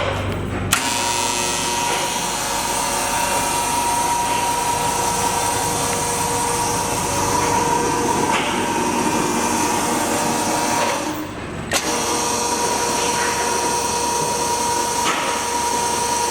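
Electric drive of a Pandjiris welding positioner running with a steady whine. It cuts out briefly about eleven seconds in and starts again with a click.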